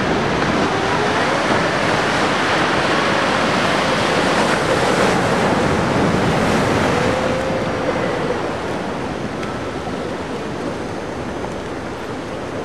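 Ocean surf: waves breaking and washing in a steady rush of noise that eases off somewhat after about eight seconds.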